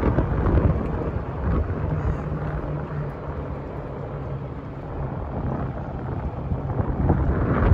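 Wind buffeting the microphone while riding in an open golf cart, with a low rumble from the moving cart. The noise eases off for a few seconds in the middle and picks up again near the end.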